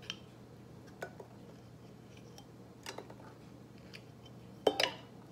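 Metal canning-jar lids clinking as they are separated from a stack and put into a small saucepan of water: a few light, separate clicks, then a louder double clink near the end.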